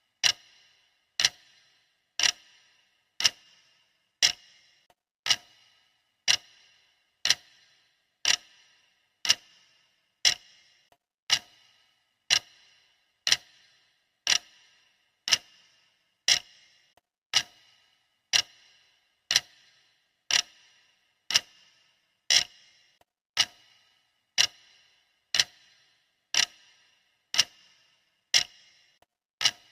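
Clock ticking steadily, one sharp tick a second, each tick ringing briefly.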